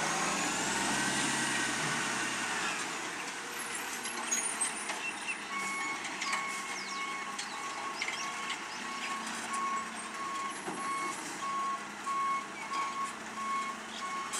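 Split-body side-loader garbage truck's engine running, its pitch gliding up and then falling away over the first few seconds. From about a third of the way in, the truck's reversing alarm beeps at an even pace as it backs up.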